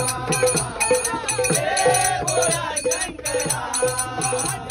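Marathi devotional bhajan sung by a group of men, with small brass hand cymbals (taal) clashing in a steady rhythm of about four strokes a second over a hand drum.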